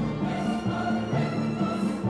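Orchestral background music with drums, laid over the footage.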